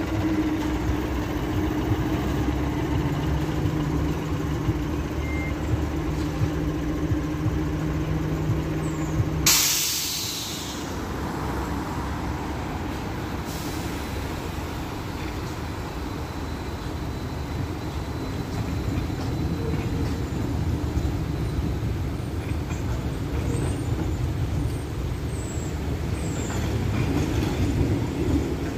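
A standing vehicle hums steadily on two low tones, then about ten seconds in the hum stops with a sharp hiss of released compressed air that fades over about a second. After it comes steady street traffic noise.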